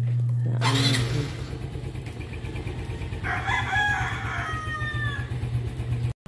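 Motor scooter engine running at idle, with a short loud rush of noise just under a second in. A rooster crows once, from about three seconds in, for roughly two seconds.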